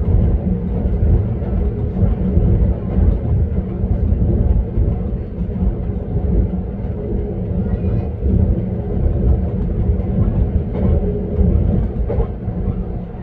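Passenger train running at speed between stations, heard from on board: a steady low rumble of wheels on the rails, with a droning tone from the running gear.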